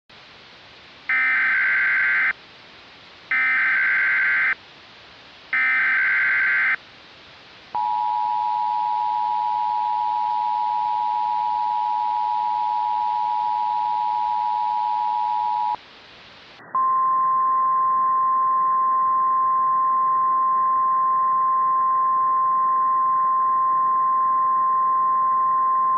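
Emergency Alert System tones: three SAME header data bursts about a second each, then the two-tone EAS attention signal held for about eight seconds. After a short gap, a single steady 1050 Hz NOAA Weather Radio alert tone sounds, duller than the first part.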